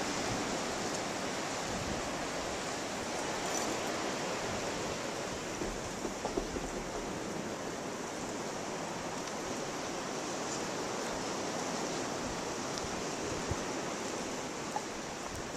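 Steady rushing hiss of blizzard wind, even throughout, with a few faint ticks.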